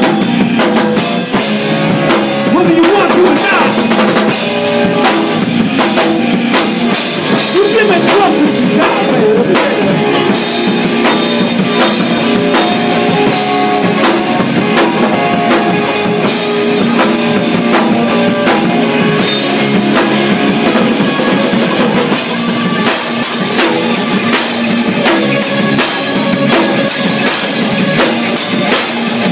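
Live band playing loudly: electric guitars and a drum kit with cymbals, running without a break.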